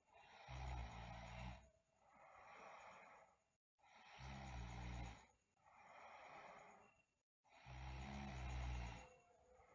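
A sleeping girl snoring: three low snores about three and a half seconds apart, with softer breathy breaths between them.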